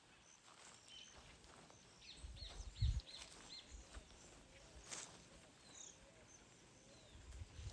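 Small birds chirping, with a quick run of short falling chirps about two seconds in, over quiet footsteps on a country path. A low thump just before the middle is the loudest sound.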